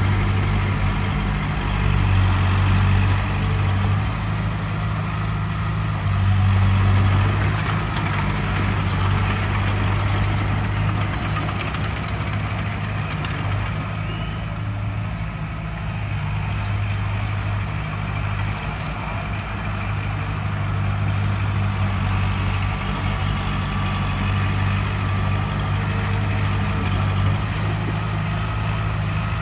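Heavy diesel engine of earthmoving machinery running steadily with a deep hum, swelling a little in loudness now and then.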